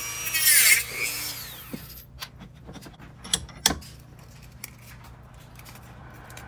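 Handheld rotary tool with a cut-off wheel cutting a white plastic part: a high whine that dips in pitch as the wheel bites into the plastic, then winds down and stops about two seconds in. After that come light clicks and taps of the cut plastic piece being handled.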